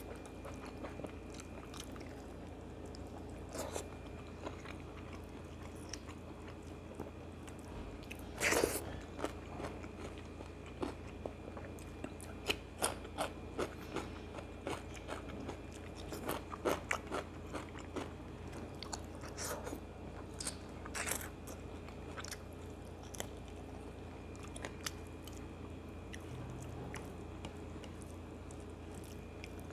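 Close-miked eating by hand: chewing and crunching bites of rice, chicken curry and raw vegetable, heard as scattered short wet clicks. The loudest bite comes about eight and a half seconds in, and the bites come thicker between about twelve and twenty-one seconds.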